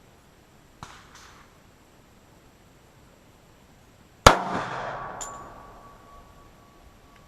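A single loud gunshot about four seconds in, sharp and then echoing away over a couple of seconds, from a cast-lead bullet fired into a stack of 2x4 boards. A small click comes shortly before it.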